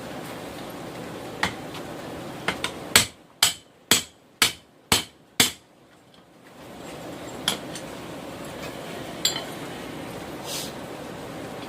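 Blacksmith's hammer striking hot rail steel on an anvil: a quick run of six hard, ringing blows about two a second near the middle, with a few lighter taps before and after, over a steady background hiss.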